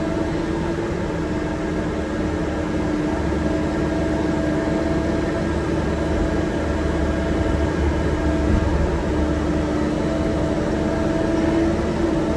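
Excavator engine running steadily with a constant low rumble and a steady hum.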